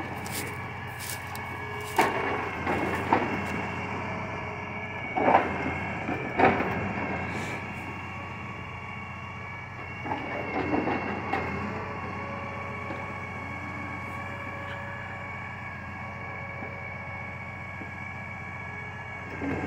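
Logging truck's hydraulic log loader running with a steady high hum, with several knocks and clunks of logs being picked up and set down, the loudest about five and six and a half seconds in.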